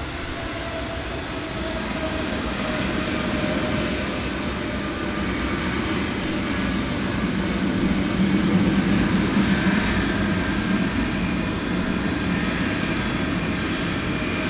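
Boeing C-17A Globemaster III's four Pratt & Whitney F117 turbofan engines running at taxi power: a steady jet rush with a faint whine that grows louder as the aircraft rolls closer, loudest about eight seconds in.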